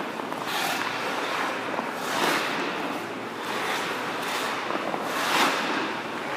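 Ice-hockey goalie skates scraping the ice in repeated swishes, one every second or two, as the goaltender shuffles and T-pushes across the crease.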